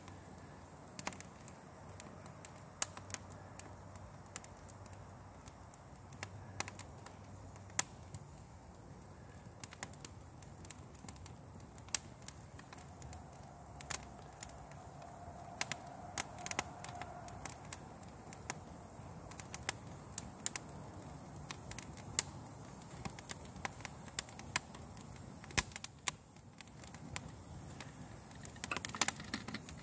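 Twig-bundle campfire of damp wood crackling, with many irregular sharp pops, as it catches and the flames build.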